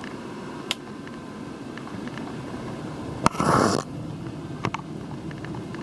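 Steady background hum with a few light clicks, one sharper than the rest about three seconds in. A short breathy rush follows right after it.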